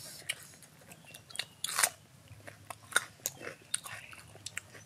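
People eating close to the microphone: crunching and chewing mouthfuls of food, with scattered short clicks and a louder crunch just under two seconds in.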